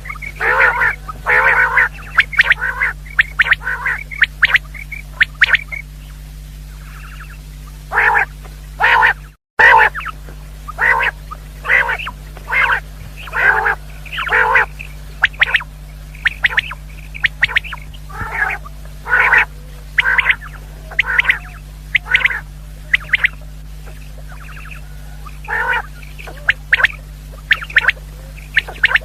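Common quail calling: short, harsh call notes repeated in irregular clusters, about one or two a second, over a steady low hum. The sound cuts out for a moment about nine seconds in.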